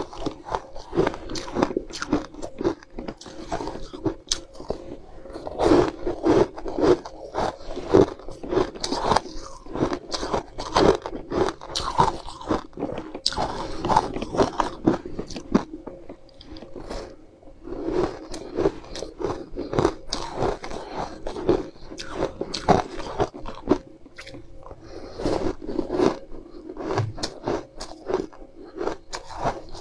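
Ice being bitten and chewed close to the microphone: a dense run of sharp, crisp crunches and cracks, with a couple of brief lulls.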